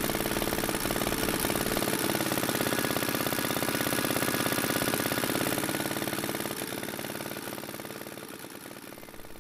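Small stationary engine of a BSA 300-watt generator set (a licence-built Johnson Chore Horse) running steadily with a fast, even exhaust beat, on its freshly rewound magneto coil. The sound fades away over the last few seconds.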